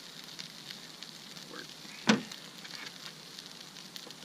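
Eggs and breakfast meat frying in a pan, sizzling steadily with scattered crackles. A single sharp knock about halfway through.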